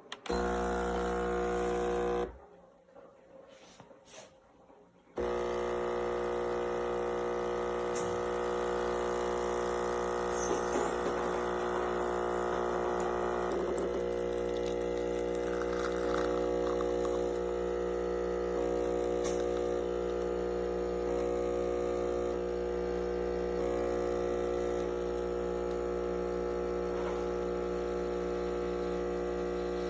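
Espresso machine's electric water pump buzzing steadily as it pumps water through. It cuts out about two seconds in, starts again about five seconds in, and keeps running.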